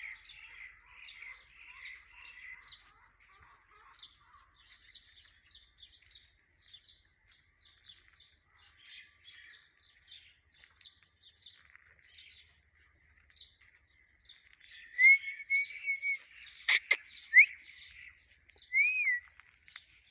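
Birds chirping in many short, high notes, with a few louder whistled calls near the end and one sharp click among them.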